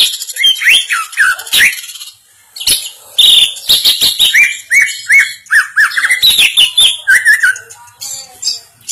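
Caged green leafbird (cucak ijo) singing a rapid run of short, quickly falling whistled notes mixed with sharp clicks. There is a brief pause about two seconds in.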